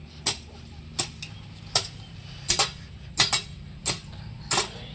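A garden hoe chopping into the soil in a steady rhythm, one sharp strike about every three-quarters of a second, some of them as a quick double hit, as weeds are hoed out.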